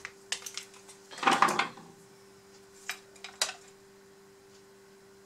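Small metal tools and parts clinking and rattling on a workbench: a few separate clicks, with a short, louder burst of rattling about a second and a half in, over a faint steady hum.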